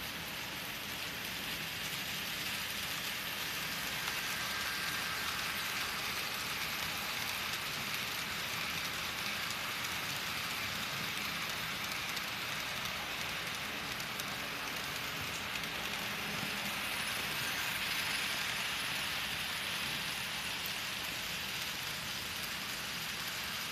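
Several model trains running on a layout: a steady rolling hiss and whir of wheels on track and small motors, growing a little louder twice as trains pass close by.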